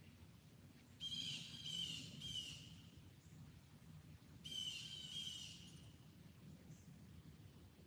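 A songbird calling: three quick repeated notes about a second in and another short phrase about four and a half seconds in, over a steady low background rumble.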